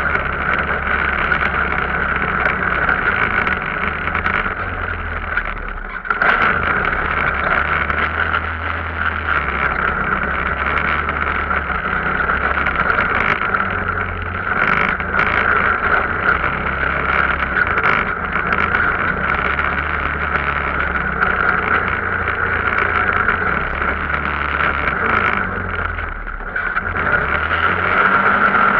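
Arctic Cat off-road vehicle's engine running under way, a low engine rumble with a steady high whine over it. The throttle eases off briefly about six seconds in and again near the end.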